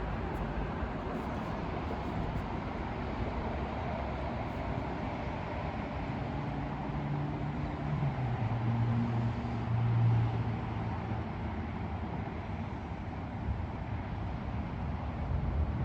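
Steady outdoor background noise with a low engine hum from a passing vehicle, which swells about six seconds in, drops in pitch about eight seconds in, peaks near ten seconds and fades away.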